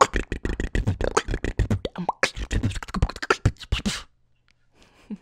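Female beatboxer performing a fast, dense beatbox pattern of vocal kick drums, snares and clicks. It stops suddenly about four seconds in.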